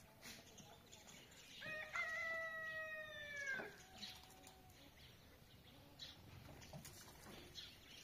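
A rooster crowing once: a single call of about two seconds, held level and falling away at the end.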